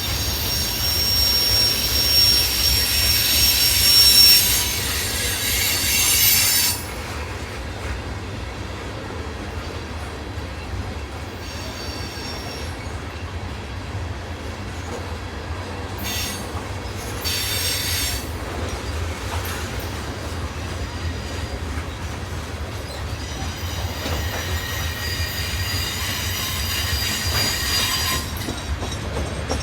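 Freight train cars rolling past with a steady low rumble and high-pitched wheel squeal. The squeal is strong for the first several seconds and stops abruptly, comes back briefly in short bursts, then rises again for a few seconds near the end.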